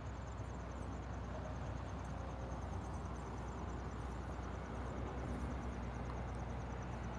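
Open-field ambience: a steady low rumble on the microphone, with an insect in the grass chirping high in a fast, even pulse of several chirps a second that fades near the end.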